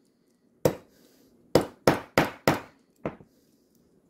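Small plastic-faced watch repair hammer tapping a snap-on watch case back into place: one tap, then four quick taps about a third of a second apart, and a lighter final tap. The case back is stubborn to seat on a cheap watch with loose tolerances.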